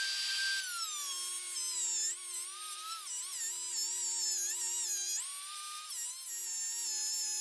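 Small rotary tool with a cutoff wheel grinding into the steel bearing retainer ring on an axle shaft. It gives a high whine that holds steady at first, then drops in pitch as the wheel bites and wavers with the load, rising again briefly about five seconds in. The ring is being cut deeper so it will loosen for removal.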